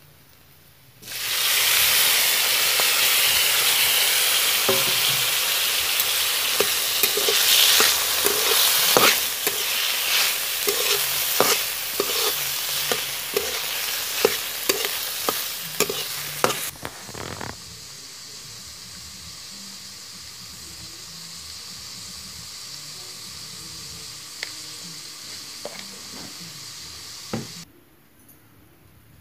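Snails in their shells tipped into hot oil and spices in a kadhai, setting off a loud sizzle, then stirred with a metal spatula with many short clicks of shell and metal against the pan. Past halfway the sizzle settles to a softer steady hiss, which cuts off near the end.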